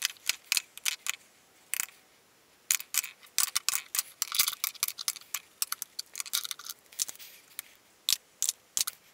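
Lipstick tubes clicking and tapping against a clear acrylic organizer as they are set into its slots: a run of irregular light clicks, with a short pause about two seconds in.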